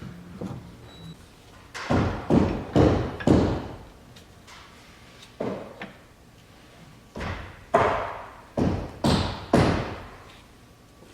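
A series of sharp knocks with short ringing tails, about four a couple of seconds in and another run of five later on, from tools working on the differential assembly.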